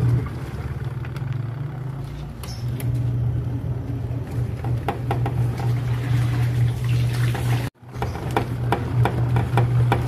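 Twin-tub washing machine motor running with a steady low hum, with water sloshing and small clicks and knocks over it. The sound cuts out for a moment about three-quarters of the way through, then resumes.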